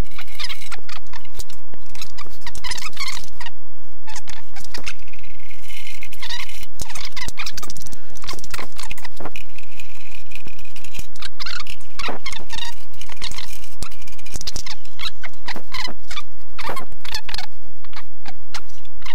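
Screwdriver backing screws out of the legs on a stainless steel brewing-unit base: a run of small clicks, scrapes and short squeaks from the screws and parts being handled close up.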